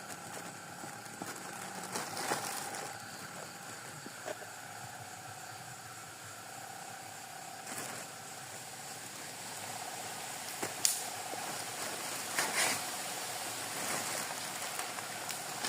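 Night insects trilling steadily, with a few short rustles or knocks now and then.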